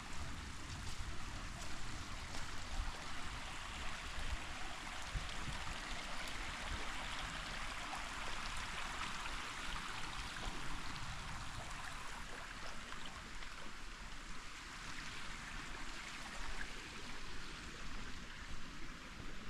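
Creek water flowing over rocks: a steady rushing and gurgling that grows louder for a few seconds in the middle, then eases back.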